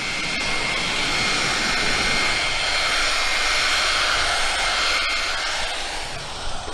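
A steady rushing noise with a thin high whine in it, swelling through the middle and fading near the end.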